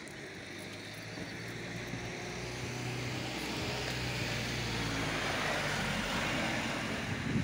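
A motor vehicle going by: a steady low engine hum under a rushing noise that swells gradually and peaks about six seconds in.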